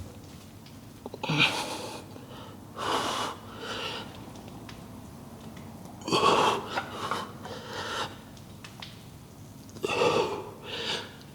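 A man breathing hard, in heavy puffs every second or so, winded from a set of front squats.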